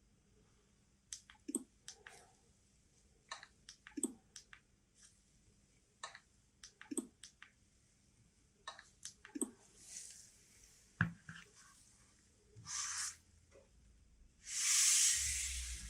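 Handling noises from a smartphone and its packaging: a series of light clicks and taps, then short bursts of rustling, the loudest lasting the last second and a half.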